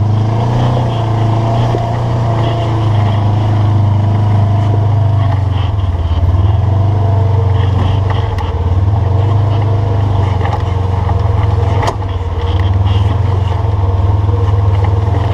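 Side-by-side UTV engine running as it crawls over slickrock, the engine note dropping and picking up again several times with the throttle. A single sharp knock about twelve seconds in.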